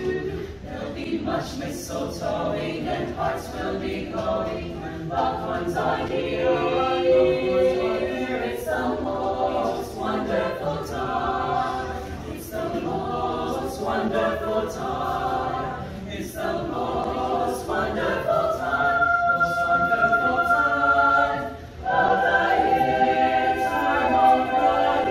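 Mixed-voice high school show choir singing holiday music a cappella in close harmony. About 21 seconds in the sound dips briefly, then the choir comes back louder on long held chords.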